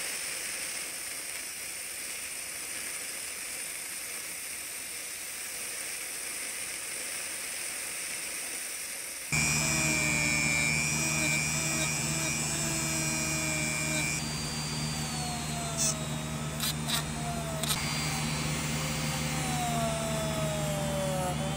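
Abrasive blaster hissing steadily as grit is blown onto a paint-stripped die-cast model part. About nine seconds in the sound switches to a handheld rotary tool running with a steady hum and high whine, its small abrasive bit grinding the bare die-cast metal, the whine sagging in pitch as the bit bears on the metal.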